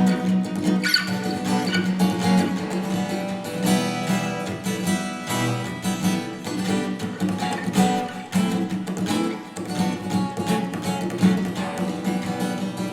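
Acoustic guitar strummed and plucked in a steady rhythm.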